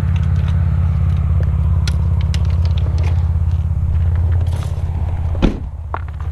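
Pickup truck engine idling with a steady low hum, with small clicks and knocks over it; about five and a half seconds in a single sharp thud, typical of the truck door being shut, after which the hum is a little quieter.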